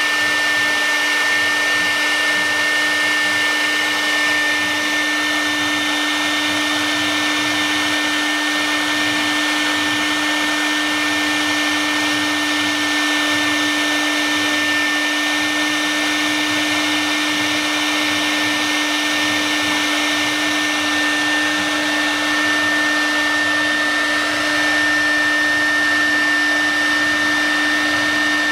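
CNC wood router spindle running at a steady, constant-pitch whine over an even hiss while it carves a relief pattern into a wood panel.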